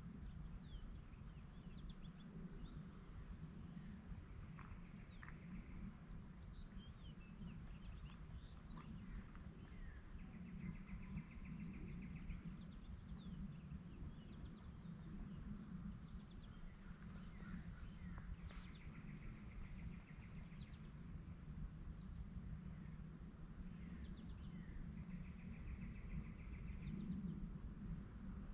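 Faint songbirds: one repeats a short buzzy trill four times, about every seven seconds, among scattered short chirps, over a steady low rumble.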